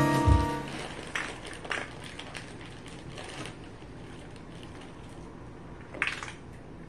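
Background music dies away in the first half second. Then come a few light clicks and rattles from a marble running through a translucent plastic marble run, with the sharpest clack about six seconds in.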